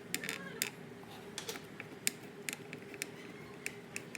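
Irregular light plastic clicks and taps as the mounting bracket of a screwless wall plate is handled and fitted over an electrical outlet.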